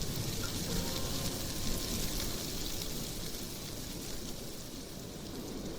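Steady hiss of background ambience over a low rumble, with no clear voices or music.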